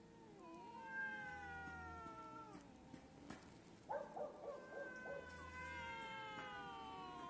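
Two cats yowling at each other in a standoff before a fight: a long drawn-out yowl that slowly falls in pitch, a short stuttering warble about four seconds in, then another long falling yowl.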